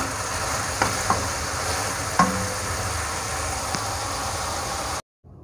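Snow peas and mushrooms in oyster-sauce gravy sizzling steadily in a wok as they finish cooking, with a few light clicks of a metal spoon against the pan. The sizzle cuts off suddenly just before the end.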